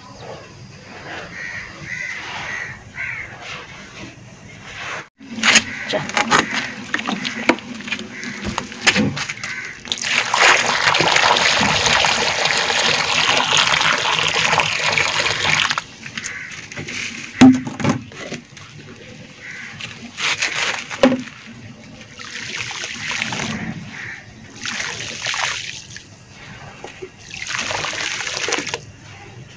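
Hands scraping and scooping dry, dusty powder. About ten seconds in, a steady stream of water pours into a hollow in the pile with bubbling for about six seconds, then stops abruptly. After that, handfuls of dust sift through the fingers and fall back in several short, separate swishes.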